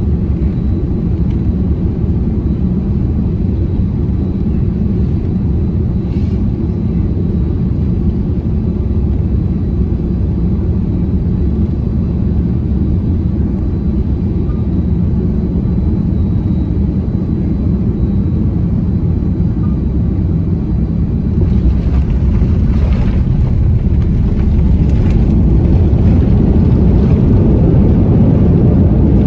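Boeing 787-10 heard from inside the cabin on final approach: a steady low rumble of the engines and airflow. In the last several seconds it grows louder and rougher as the aircraft comes down onto the runway and touches down.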